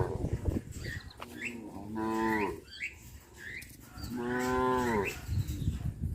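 Cattle mooing: two long calls, each dropping in pitch at the end, with the tail of another just at the start.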